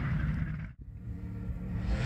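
Rally car engines: one fading into a low rumble, a sudden brief drop-out under a second in, then another engine growing louder near the end.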